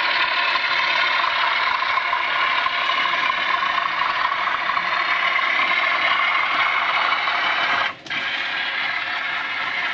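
OO gauge model train running round the layout: a steady motor-and-gear whir with wheels clattering on the track, briefly breaking off about eight seconds in.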